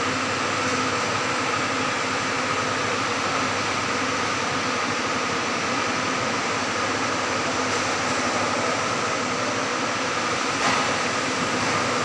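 Steady rushing hum of building ventilation fans, an even wash of air noise with a few faint steady tones running through it. A light knock sounds once, about three-quarters of the way through.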